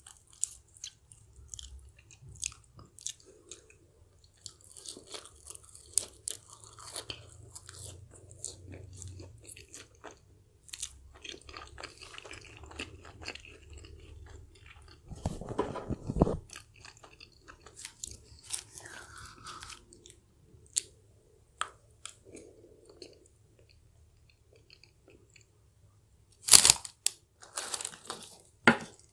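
Close-miked chewing of crunchy fried food (fries and fried chicken), with crisp crunches and wet mouth sounds. A cluster of loud crunches comes near the end.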